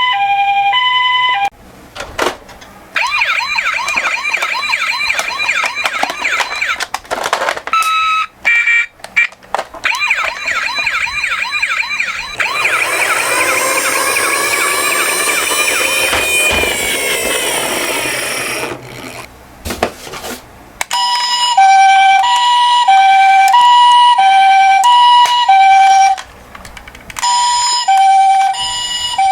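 Toy ambulance's electronic siren. It opens and closes with a two-tone hi-lo ambulance siren, louder near the end. In between come a fast warbling siren and then a long falling wail.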